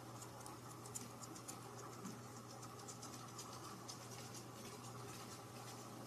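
Faint light scratching and ticking, a kitten playing with a pom-pom wand toy on a fabric sofa, over a low steady hum.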